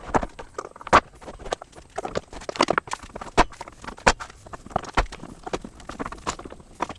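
Woodworking clamps being handled and tightened on a glue-up of boards: a run of irregular hard knocks and clicks, a few a second, the loudest about a second in.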